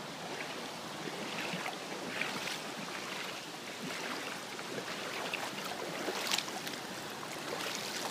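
Floodwater flowing steadily over a tennis court: an even rush of moving water, with a few brief splashes.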